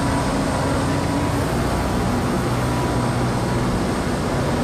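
A fishing boat's engine running steadily, a constant low hum with no change in speed.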